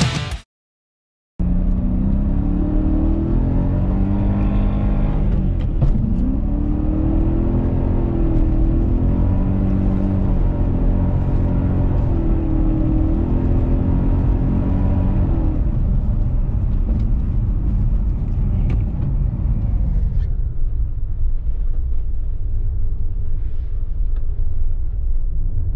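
BMW M3 E90's V8 engine heard from inside the cabin, revving up and down repeatedly as the car is driven hard, then dropping to a lower, steadier rumble for the last several seconds.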